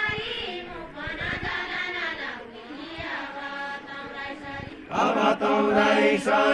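A group of voices singing a Nepali folk song together in a chant-like unison, phrase by phrase, with a louder phrase coming in about five seconds in.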